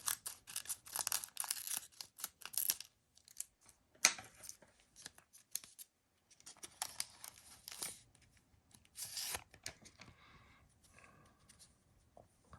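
Trading card packaging torn open by hand: crackling tears of wrapper in irregular bursts, busiest in the first three seconds and fainter after about ten seconds.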